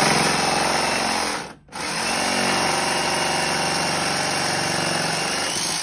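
Corded jigsaw cutting wood, running in two stretches with a brief stop about a second and a half in.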